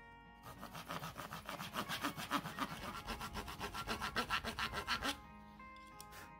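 Fine-toothed hand saw cutting through a small block of wood in quick, even back-and-forth strokes. The sawing stops suddenly about five seconds in, leaving background music.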